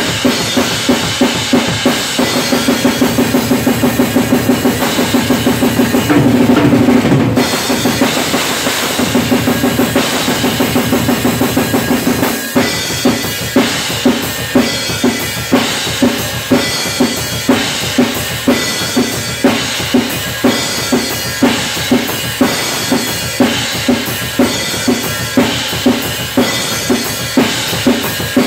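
Acoustic drum kit played fast and hard in a metal style, with bass drum, snare and cymbals. Dense rapid strokes at first, a louder cymbal-heavy stretch about six seconds in and a brief break near twelve seconds. After that comes a steady beat of strong accents about twice a second over fast continuous strokes.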